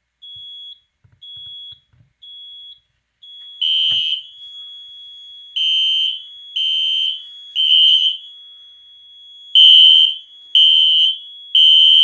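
Fire alarm panel beeping in short high pulses, then going to a steady high tone about three seconds in as the magnet-tested smoke detector puts the system into alarm. Over it a System Sensor SpectrAlert Classic horn strobe sounds its electromechanical horn tone in the temporal-three pattern: three half-second blasts, a pause, then three more.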